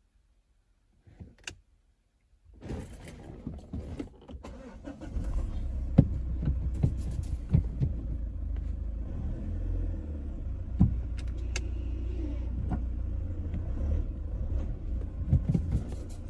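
Mazda 6 engine started up a few seconds in and then idling steadily, heard from inside the cabin, with scattered sharp clicks from the dashboard and console controls.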